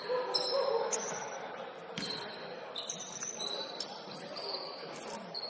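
Basketball game sounds: sneakers squeaking in short high chirps on the court and a ball bouncing, with players' voices murmuring underneath.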